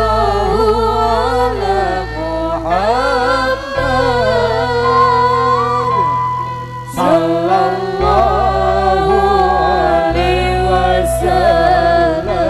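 Sholawat sung in long, drawn-out melismatic notes, over sustained low bass notes that change every few seconds.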